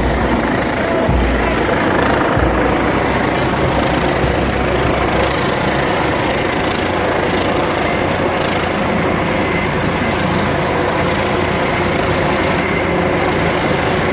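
Steady, loud engine noise from heavy vehicles, with a few low thumps during the first few seconds.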